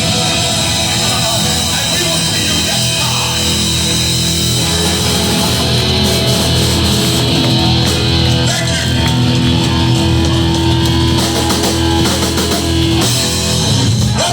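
Live hardcore band playing loud, with distorted electric guitars, bass and drums.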